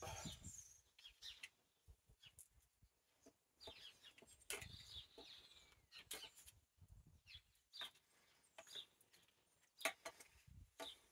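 Near silence, broken by scattered small clicks and knocks of hands working at a motorcycle headlamp and its wiring, with faint bird calls in the background.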